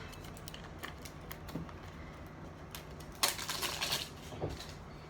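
Small clicks and taps of cosmetic packaging being handled, with a short rush of noise, just under a second long, about three seconds in.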